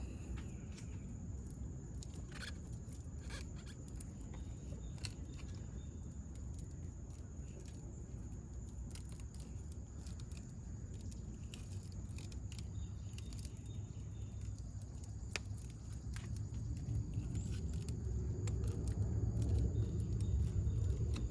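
Scattered light clicks and scrapes of hand tools working a thick copper battery cable, over a steady low rumble that grows louder near the end and a faint steady high tone.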